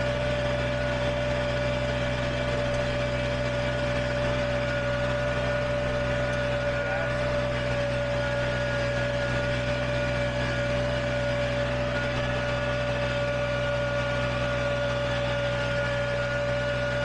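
Kubota BX23s compact tractor's three-cylinder diesel running at a steady throttle while pulling a land plane, with a constant high whine over the engine note.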